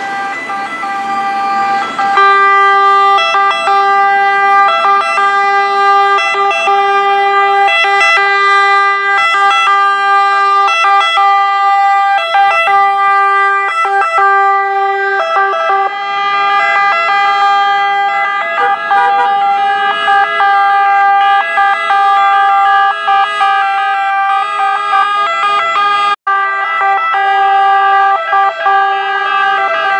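Several ambulance sirens sounding together as a column of ambulances drives past, their tones overlapping into a loud, steady chord. The sirens come in about two seconds in over road traffic, and the sound cuts out for an instant a few seconds before the end.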